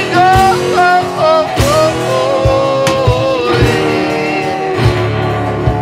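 Rock song with a singing voice over guitar and drums.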